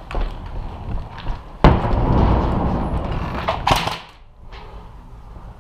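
Knocks, then a sudden loud rough scraping rustle with a low rumble lasting about two seconds, from a body-worn action camera's microphone rubbing against clothing, gear or a wall as the player moves. A sharper scrape comes near the end of it, then it drops away.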